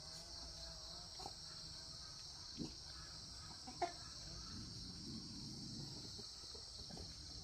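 Steady high-pitched insect drone, with a few short animal calls, one of them a wavering call near the start.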